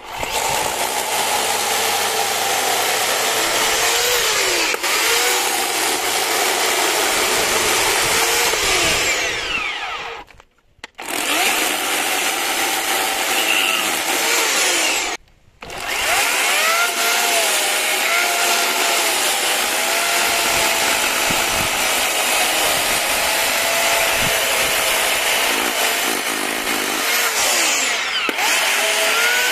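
A loud motorised power tool running, its pitch wavering up and down as it works. It cuts out briefly twice, once around a third of the way in and again about halfway.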